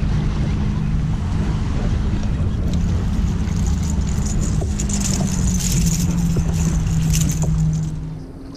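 Wind rumbling on the microphone over a steady motor drone, with splashing from a hooked fish thrashing and leaping at the surface about halfway through.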